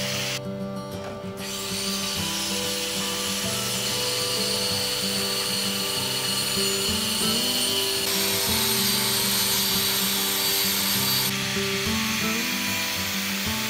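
Background music over an electric angle grinder's disc cutting and grinding. The grinder's high whine grows louder about eight seconds in and eases again about three seconds later.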